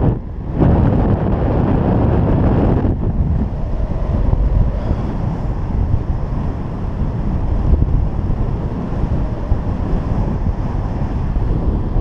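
Wind rushing over a GoPro's microphone in paraglider flight: a steady, loud rush that drops out briefly near the start and eases a little after about three seconds.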